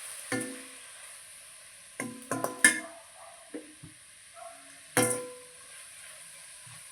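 A cooking utensil knocking and scraping against a pan as chopped tomato is stirred into frying onion and spices, over a steady sizzle. The knocks come in a quick cluster two to three seconds in, with one sharp knock about five seconds in, some ringing briefly.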